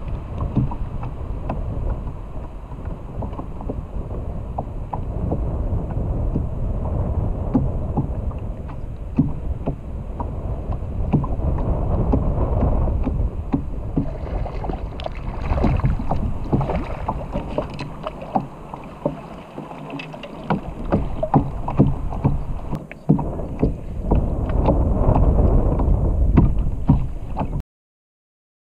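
Wind buffeting the microphone of a kayak-mounted camera, with choppy water lapping against the plastic kayak hull and scattered clicks and knocks. The sound cuts off suddenly near the end.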